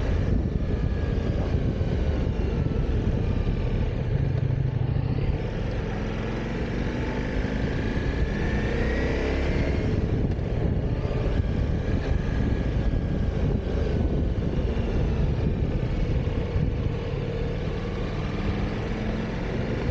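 Motorcycle under way, engine running with heavy wind rush over the microphone. The engine note rises between about six and ten seconds in.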